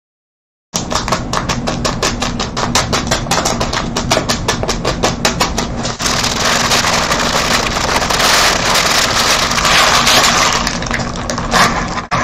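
Paper burger wrapper crinkling and crackling loudly as a Whopper is unwrapped. It starts about a second in as rapid clicking at roughly ten a second and turns into a denser, louder crackle about halfway through.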